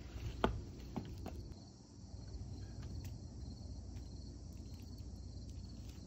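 Steady, faint chorus of insects chirring, with a few faint clicks and rustles as husks are stripped from ears of sweet corn.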